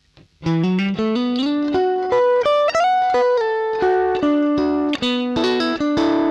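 Electric guitar playing a single-note melodic line, heard as the direct line signal from the amplifier into the audio interface, with no microphone or room sound: a flat, dry tone. It starts about half a second in, the notes climbing and then coming back down.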